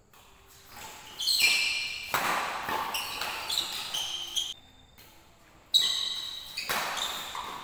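Badminton rally on an indoor court: sports shoes squeak on the court floor in short, high-pitched squeals that come in clusters, with sharp racket hits on the shuttlecock. One sudden loud hit comes a little before six seconds in.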